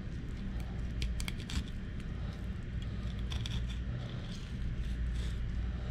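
Fillet knife slicing along a gafftopsail catfish: short scraping, crackling strokes as the blade cuts through skin and along the bones, coming in a few clusters over a steady low hum.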